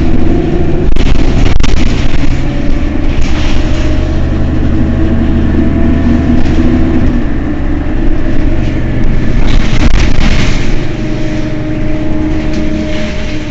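Mercedes-Benz Citaro city bus engine idling steadily while the bus stands still, a low hum with two brief rushes of noise, about three seconds in and again near ten seconds.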